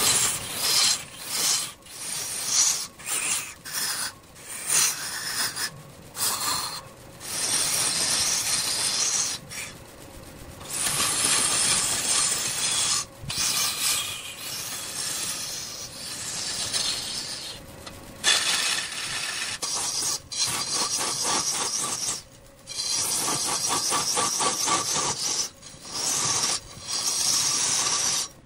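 A turning tool cutting into wood spinning on a large wood lathe: a rough scraping noise that starts and stops many times, short strokes at first and longer passes of a few seconds later on.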